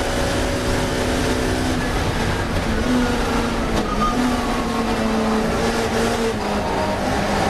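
Racing touring car's engine running hard at steady high revs, its pitch lifting and dipping slightly as the throttle changes, with steady road and wind noise underneath.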